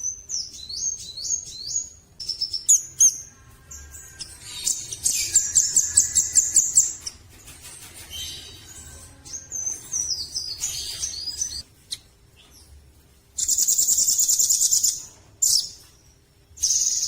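A caged red-billed rambatan (velvet-fronted nuthatch) singing in bursts of high, rapid chirps, falling whistled notes and fast trilling rattles, separated by short pauses. Its loudest and longest rattling trill comes near the end.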